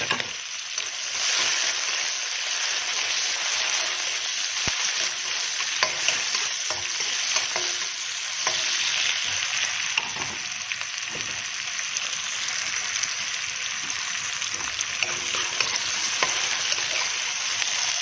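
Sliced red onion and garlic sizzling in hot oil in a wok, a steady frying hiss with scattered small crackles: the aromatics sautéing at the start of a ginisa.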